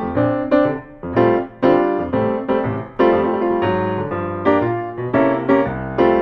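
Solo piano music playing a sequence of chords and notes, each struck and left to ring.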